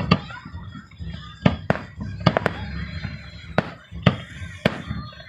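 Fireworks exploding: about nine sharp bangs at uneven intervals, some in quick pairs, over a continuous low rumble.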